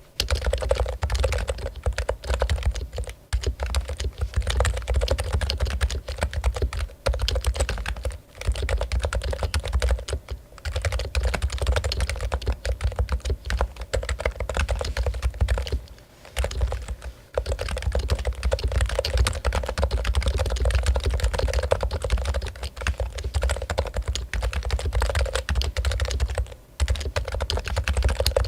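Fast, continuous typing on a Topre Realforce keyboard, its electrostatic capacitive rubber-dome switches giving a dense run of soft keystrokes, with a few brief pauses between bursts.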